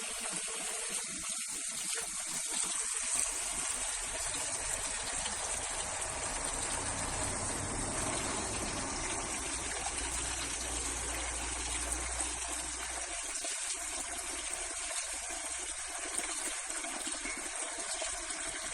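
Water running in a steady, unbroken gush.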